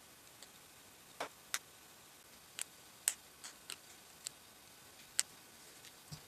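Faint, irregular light clicks and ticks, about ten in six seconds, from a homemade index-card spatula spreading thermal paste across a CPU cooler's base.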